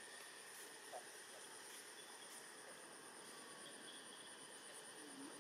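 Faint insect trill, a high, evenly pulsing note that runs steadily over a soft hiss of tropical forest ambience, with a short chirp about a second in.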